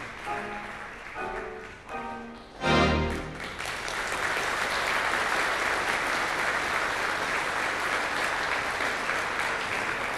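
A 3/17 Wurlitzer theatre pipe organ plays the closing phrases of a tune and ends on a loud final chord about three seconds in. Steady audience applause follows.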